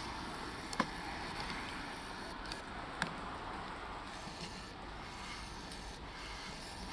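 Steady outdoor wind noise with two sharp clicks, the first just under a second in and the second about two seconds later.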